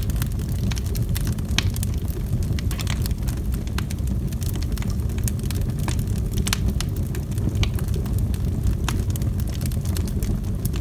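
Log fire burning: a steady low rumble of flames with frequent irregular sharp crackles and pops from the burning wood.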